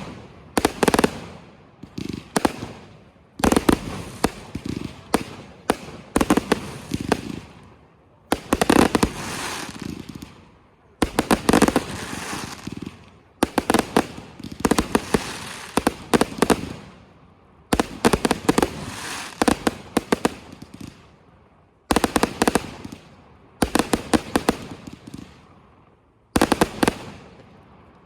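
Fireworks going off in a rapid series: a burst of sharp bangs every one to two seconds, each fading out before the next.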